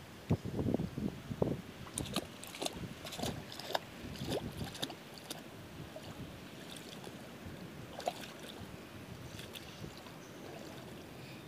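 Water splashing and sloshing in short, irregular bursts as a toddler's sandalled feet step through shallow seawater, over a steady haze of wind noise on the microphone.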